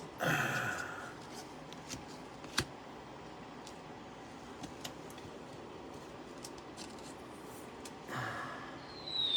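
Trading cards and foil pack wrappers being handled: faint rustling with scattered light clicks and ticks as cards are slid out and sorted, with a short rustle near the start and another about eight seconds in.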